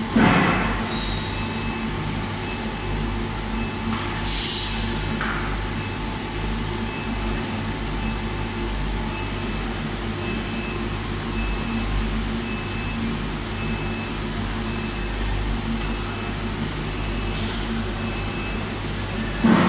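Phosphating line machinery running with a steady mechanical hum, the overhead wagon plant in operation. A faint short beep repeats at a steady pace throughout. Loud knocks come near the start and just before the end, with a brief high hiss about four seconds in.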